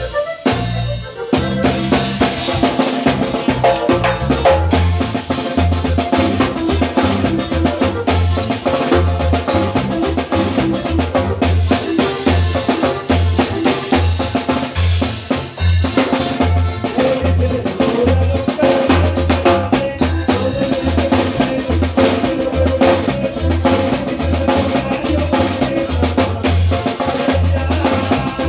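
Norteño zapateado tune with a prominent drum kit and a regular bass pulse under sustained melody notes. The music thins out briefly about a second in, then runs on steadily.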